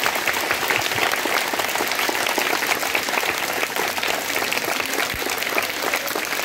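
A group of adults and children applauding: many hands clapping together in a steady, dense patter.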